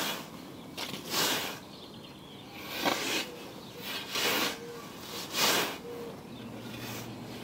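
Scottish Y-frame scythe with a 32-inch riveted Isaac Nash blade swishing through grass as it is trimmed: about four cutting strokes, a little over a second apart, stopping near the end.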